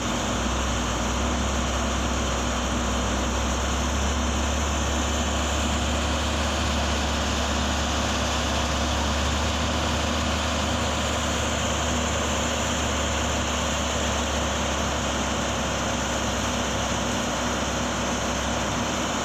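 A vehicle engine idling: a steady low drone with a constant hum that does not change in pitch or level.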